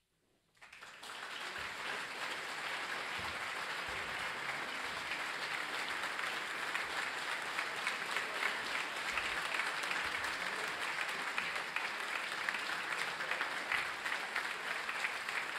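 Concert audience applauding, breaking out of silence about half a second in, swelling over the next second and then holding steady.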